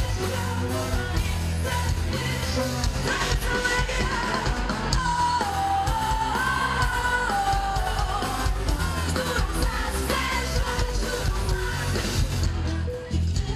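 Pop-rock song: a woman singing the melody over a band of electric guitars and a steady beat. The music dips briefly near the end.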